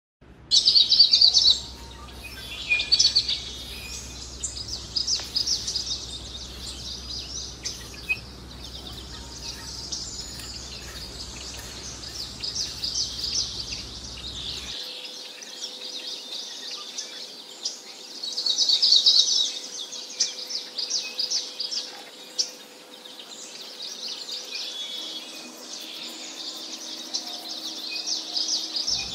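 Many small birds chirping and twittering continuously, with louder bursts of rapid chirps near the start and again about two-thirds of the way through.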